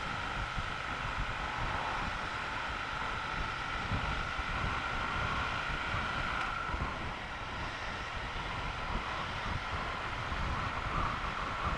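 Triumph Bonneville T120 parallel-twin motorcycle engine running at a steady cruise, mixed with wind noise buffeting the microphone.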